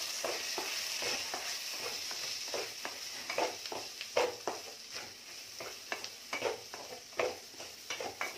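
Wooden spatula stirring and scraping spiced chicken filling around a non-stick pan, about two strokes a second, over a steady sizzle of frying.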